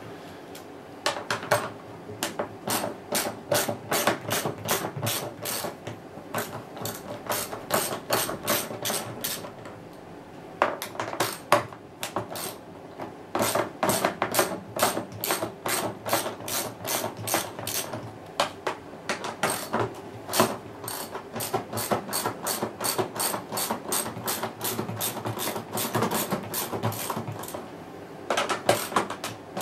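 Socket ratchet clicking in quick runs with short pauses between, as bolts around the rim of a washing machine's plastic outer tub are undone to split the tub halves.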